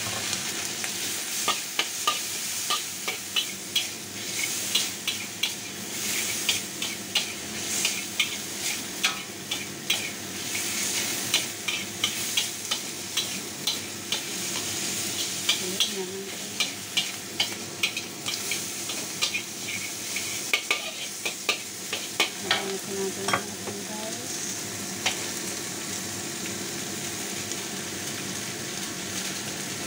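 Diced ham, shrimp and mixed vegetables sizzling in a hot wok while a metal spatula stir-fries them, its edge clicking and scraping against the wok over and over. The clicks stop in the last few seconds, leaving the steady sizzle.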